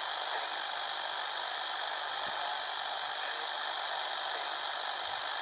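Steady shortwave static hiss from the speaker of an XHDATA D-808 portable receiver in upper-sideband (SSB) mode.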